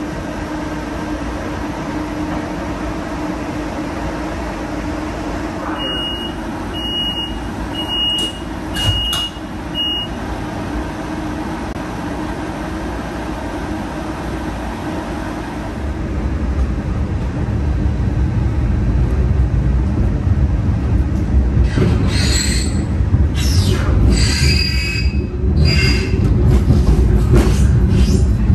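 Brookville Liberty streetcar heard from inside: a steady hum while it stands with its doors open, then five short high beeps, evenly spaced, about six to ten seconds in, as the doors close. From about sixteen seconds the car pulls away and runs louder and lower, with several high squeals from the wheels on the rails near the end.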